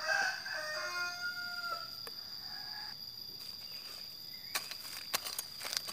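A rooster crows once at the start, one call of about two seconds, over a steady high cricket trill. A few sharp clicks follow near the end.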